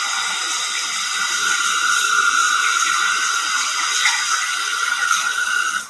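Bathroom sink tap running steadily as a child rinses her hands under it. The water is shut off abruptly near the end.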